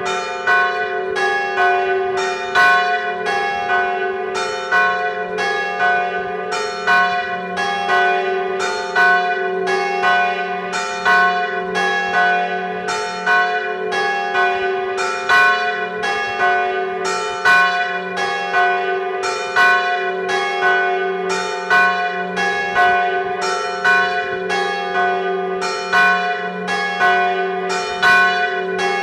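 Church bells tolling a death knell (glas): a large bronze bell swinging and striking, with a strong stroke about every two seconds and lighter strokes from the smaller bells between, all over a lasting ringing hum.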